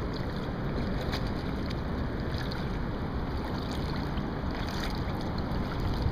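Steady wind rushing over the microphone and water washing around a kayak being paddled, with a few light paddle splashes.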